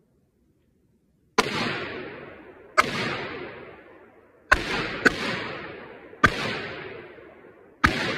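AR-15 rifle firing six single shots at uneven intervals, two of them in quick succession about halfway through. Each shot is followed by an echo that dies away over about a second.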